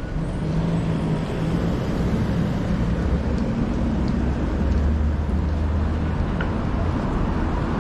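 City road traffic: motor vehicle engines running close by, a steady low rumble with a low hum.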